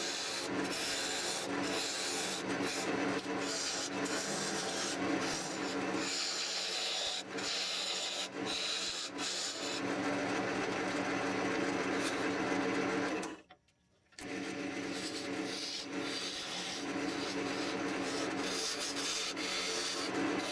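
Wood lathe running with a steady hum while the spinning wooden screwdriver-handle blank is worked, giving a continuous scraping, rasping sound. Everything drops out for under a second about two-thirds of the way through.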